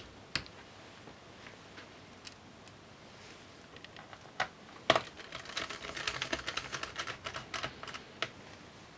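Small clicks and ticks of a precision screwdriver working Torx T5 screws into a laptop's metal base panel. A few separate clicks come first, the sharpest about five seconds in, then a run of quick light ticks for about three seconds.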